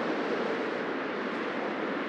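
Busy city street traffic: a steady wash of cars passing by, with no single vehicle standing out.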